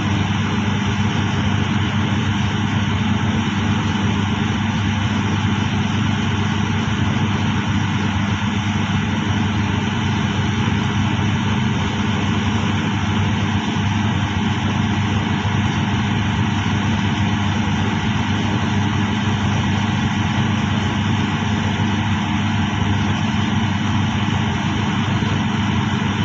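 Steady, unchanging drone of an HH-50 hydraulic drilling rig's engines and hydraulic power pack running, with a deep hum under a wash of machinery noise.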